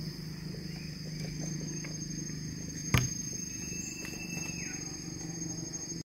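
Steady high-pitched insect drone over a low hum, with one sharp click about three seconds in.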